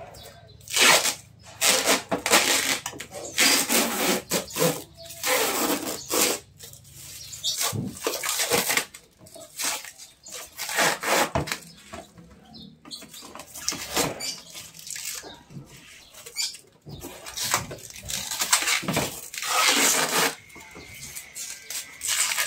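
Thin plastic protective film being peeled and crumpled off the clear plastic lid of a new Midea washing machine, in irregular crinkling rustles with short pauses between.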